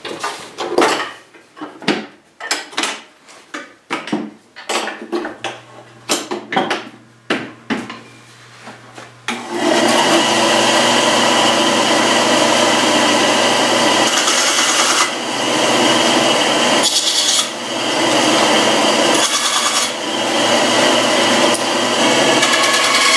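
Clicks and knocks of a Ryobi benchtop bandsaw being adjusted by hand, then about nine seconds in the bandsaw starts suddenly and runs loud and steady, sawing a board. It is running on a makeshift electrical-tape tire on its wheel.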